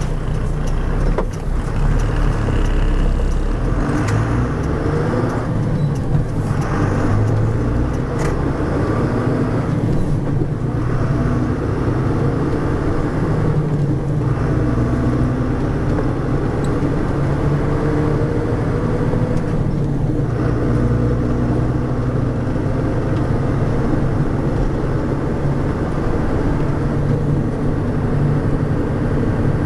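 MAN 18ML truck's D0836 diesel engine running under way, with the Eaton Roadranger gearbox and a worn, badly maintained differential adding a whining note that rises and falls. The brief breaks in the drone may be gear changes.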